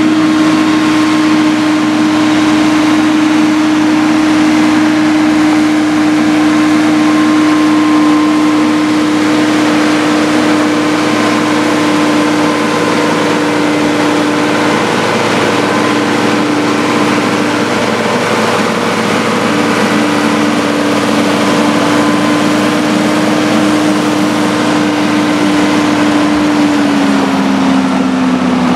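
Four-wheel-drive farm tractor's diesel engine running hard under steady load as it drags a weight-transfer pulling sledge, its pitch held level and then sagging near the end as the sledge bears down.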